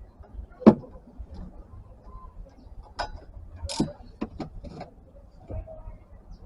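Scattered metallic clicks and knocks of tools and brake parts as a car's brake caliper is refitted and fastened, with one sharp knock about a second in and a quick run of clicks in the middle.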